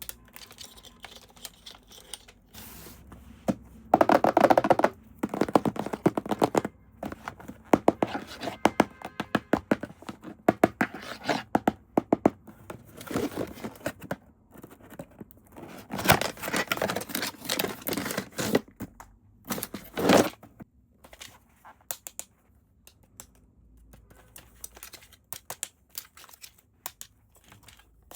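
Toy packaging being handled and opened by hand: plastic and cardboard crinkling, tearing and scraping, with scattered clicks and knocks. It comes in irregular bursts, loudest a few seconds in and again past the middle.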